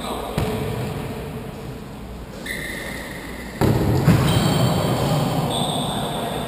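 Football kicked with a sharp thud about half a second in, then short high squeaks of trainers on the sports-hall floor, with the echoing noise of the game getting suddenly louder about halfway through.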